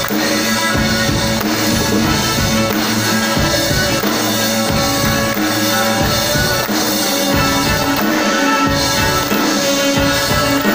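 A string ensemble of violins and cello playing a rock arrangement over a steady drum-kit beat.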